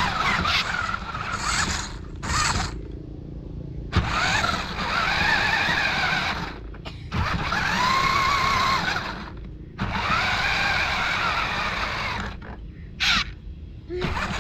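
Maisto radio-controlled toy monster truck's electric motor and gearbox whining in several runs of about two seconds, each rising then falling in pitch as it speeds up and slows, with brief pauses between.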